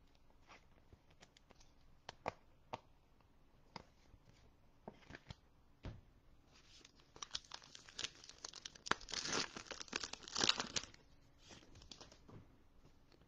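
A few light clicks, then about four seconds of a football trading-card pack's shiny wrapper being torn open and crinkled, loudest near the end.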